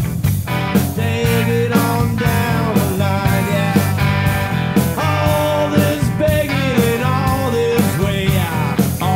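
Rock band playing live: a man singing lead over electric guitars and drums, with a steady beat of about two drum hits a second.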